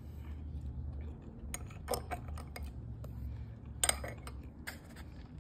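Small metal spoon clinking and scraping against a ceramic soup bowl, a handful of light clinks over a steady low hum.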